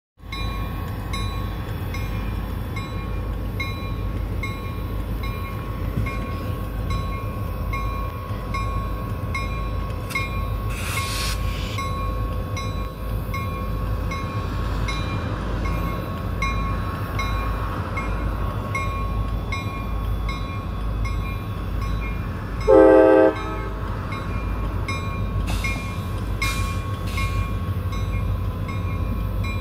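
CSX freight train led by EMD SD50-2 and SD40-2 diesel locomotives passing close by with a steady low rumble, while a grade-crossing bell rings in even strokes. About 23 seconds in, one loud horn blast lasts about half a second.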